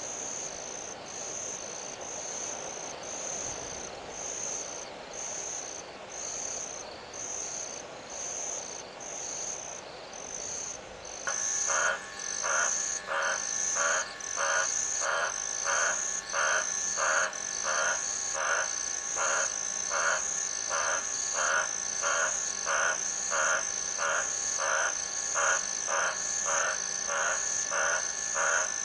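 Insects chirping steadily in a high, even rhythm. About a third of the way in, a louder animal call joins them, repeated about twice a second.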